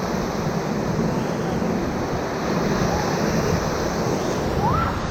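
River whitewater rushing steadily around a raft running rapids.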